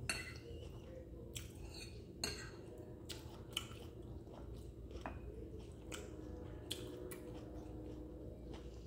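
Metal fork clinking and scraping against a ceramic plate while picking up pasta, about a dozen sharp clicks spread irregularly, with quiet chewing between them.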